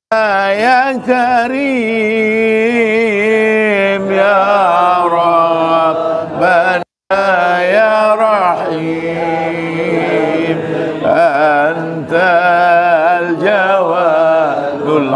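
A group of men chanting an Islamic devotional chant together, in a melodic, wavering line over a steady held low note. The sound cuts out completely for a moment about seven seconds in.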